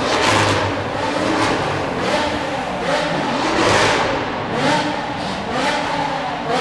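BMW M5 E60's 5.0-litre S85 V10 being revved in a road tunnel: a string of quick throttle blips, each a fast rise and fall in pitch, roughly one a second.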